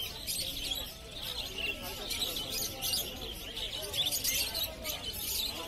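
Many caged pet birds chirping over one another in a steady, busy chatter, with people's voices talking underneath.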